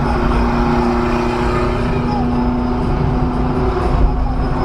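Steady engine and road rumble of a moving vehicle, with a steady low drone.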